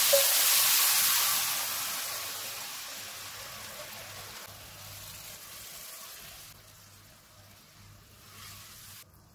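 Hot sugar syrup hitting a pan of ghee-roasted vermicelli and sizzling, loud at first and then fading steadily as it settles; it cuts off suddenly near the end.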